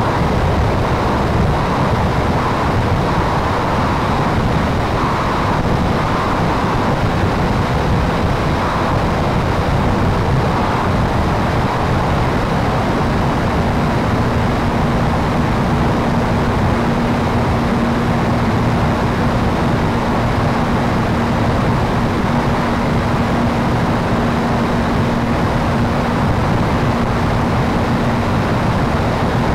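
P-51 Mustang's engine and propeller running steadily in flight, with wind rushing over the microphone. A steady hum comes in about halfway through.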